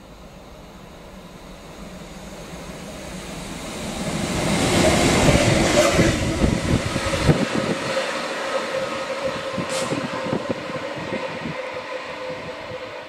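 Class 66 diesel-electric locomotive passing close by, its EMD two-stroke V12 engine and wheels building to a peak about five seconds in, with wheels knocking over the rail joints as it goes past. Then a steadier, quieter engine note and rail noise, with a short high hiss about ten seconds in.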